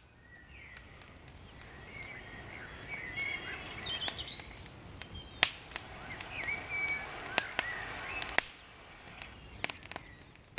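Small woodland campfire crackling, giving scattered sharp pops and cracks, while songbirds sing in short chirping phrases.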